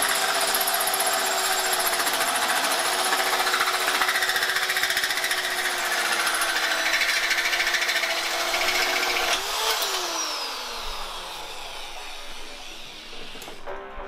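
Corded electric drill driving a hole saw into a steel bumper support: a steady motor whine over the grinding of the saw teeth on the metal. About nine and a half seconds in the trigger is let go and the motor winds down, its pitch falling away.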